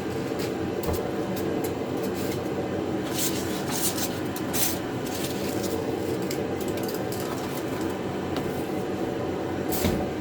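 Steady background hum, with a few short rustles and knocks as cardboard packaging and cart parts are handled.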